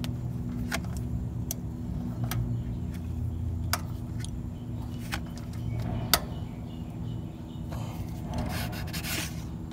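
Small ratchet wrench giving sharp single clicks about a second apart as it tightens the ignition coil's mounting screws on a Briggs & Stratton overhead-valve engine. Near the end comes a rasping rub as the card gap shim is slid out from between the coil and the flywheel.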